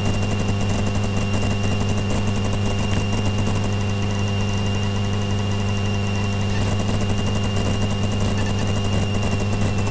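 Light aircraft's propeller engine running steadily at low taxi power, a constant deep drone with a thin, steady high-pitched whine above it.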